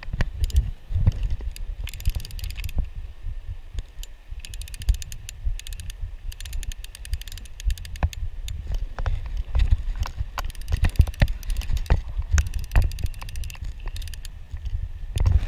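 Fly reel's click-pawl ratchet chattering in short runs of rapid clicks as line is wound in, with scattered single sharp clicks and a low rumble on the microphone.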